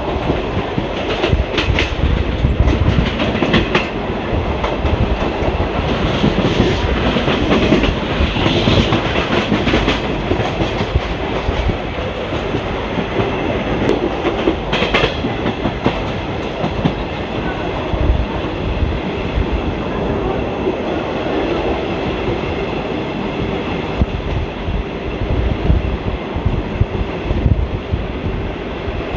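ICF passenger coach running along the track: a steady rumble of wheels and bogies, with the clickety-clack of wheels over rail joints and a few sharp clicks, most of them in the first few seconds and one about halfway.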